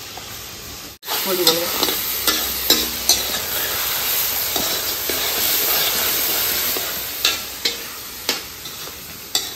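Duck meat sizzling as it dry-fries in a large iron wok over a wood fire, stirred by hand, with sharp scrapes and clacks against the pan. The sizzle jumps up suddenly about a second in.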